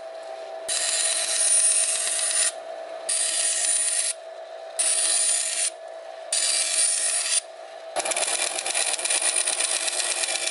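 Band saw running, its blade cutting a thin taped sheet in stretches of one to two seconds, with short breaks where only the steady hum of the running saw is left. From about eight seconds in, the cut sounds rougher and reaches lower.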